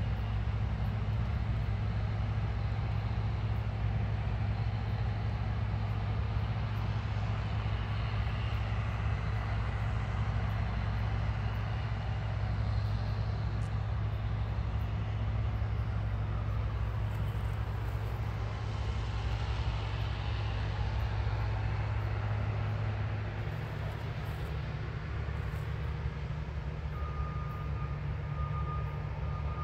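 New Holland combine harvester running steadily under load while harvesting wheat, a low engine hum; the engine note shifts about three quarters of the way through. Near the end a thin, high, broken beeping joins in.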